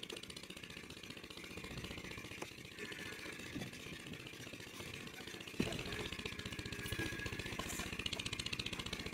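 An engine running steadily nearby, getting louder about halfway through, with a few dull knocks of a hand hoe chopping into dry soil.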